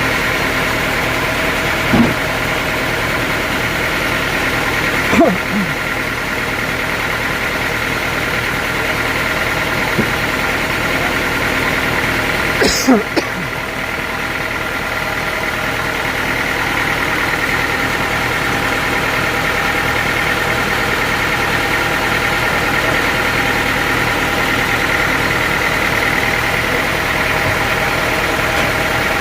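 An engine running steadily, with a few brief sharp sounds about 2, 5 and 13 seconds in.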